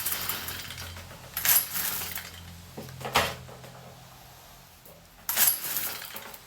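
Stihl FS55R string trimmer's recoil starter pulled three times, each pull a short metallic rattling whir, without the engine firing. It is hard to pull, and the owner suspects bad piston rings.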